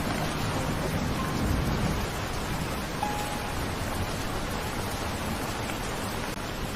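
Steady rain falling, an even hiss, with a couple of faint held musical notes in the gap between hymns.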